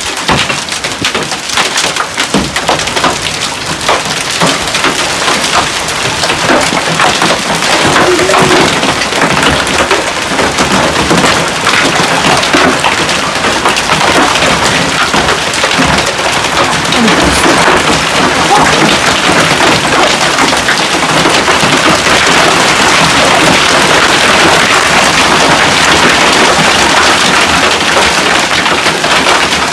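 Hail and heavy rain pelting down in a supercell thunderstorm: a dense clatter of countless small impacts over a steady hiss. It grows louder over the first several seconds, then holds steady and loud.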